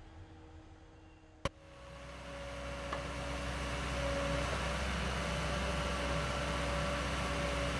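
Backhoe loader's diesel engine running, a steady low rumble with a humming tone; it rises in level over about two seconds after a single sharp click and then holds steady.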